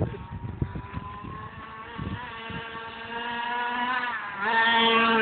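Gas-powered RC car's small two-stroke engine running with a steady note that climbs slowly. About four seconds in it jumps louder and higher as the throttle opens.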